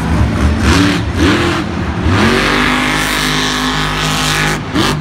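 Monster truck engine revving in short blips, then held at high revs for about two seconds before dropping off near the end.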